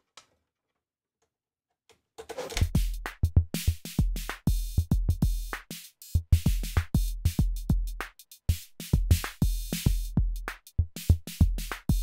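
Arturia DrumBrute analog drum machine playing a kick-heavy beat, heard dry, without the diode clipping. It comes in after about two seconds of silence.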